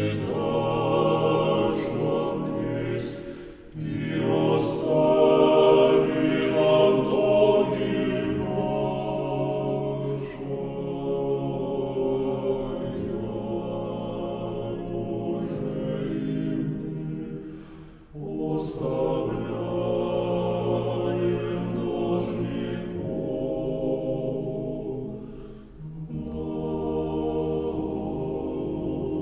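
Background music of sustained choral voices singing long held chords, with short breaks between phrases about 4, 18 and 26 seconds in.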